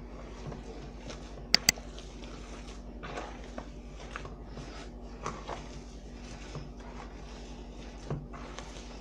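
Hands kneading corn masa for tamales in a plastic bowl: soft, irregular squishing and rubbing of the dough. Two sharp clicks come in quick succession about a second and a half in, over a steady low hum.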